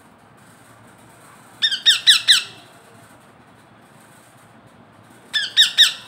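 A parakeet gives two quick bursts of harsh squawks, about four calls each, every call sliding down in pitch, while it is fed from a syringe.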